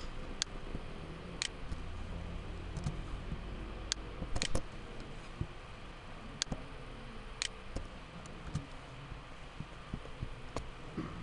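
Isolated clicks of a computer keyboard and mouse, roughly one a second, over a steady low background hum.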